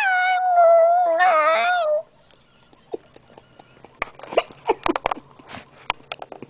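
Yorkie–papillon mix dog "singing" on command: one long, slightly wavering howl held for about two seconds that stops abruptly. It is followed by faint, scattered clicks and brief squeaks.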